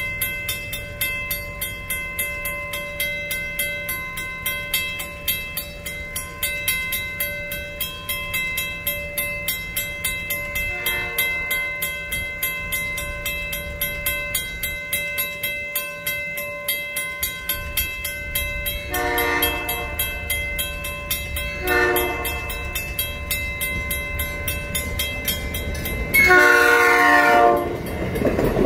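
Western-Cullen-Hayes mechanical crossing bell ringing with rapid, even strokes while the gates are down. An approaching Nippon Sharyo electric commuter train sounds its horn four times, faint at first and then closer, the last blast long and the loudest. Rail noise rises at the end as the train reaches the crossing.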